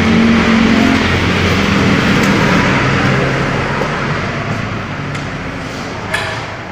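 Road traffic noise with a motor vehicle engine running steadily, slowly fading in the second half. A single sharp click about six seconds in.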